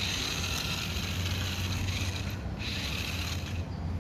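Small electric motor and plastic gears of a transforming robot-car toy whirring in two spells, about two seconds and then about one second long, over a steady low hum.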